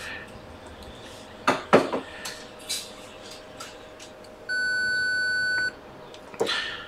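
Multimeter continuity buzzer giving one steady high beep for a little over a second as the probe touches the logic board: the sign of a line still shorted to ground. A few light clicks of the probe tip on the board come before it.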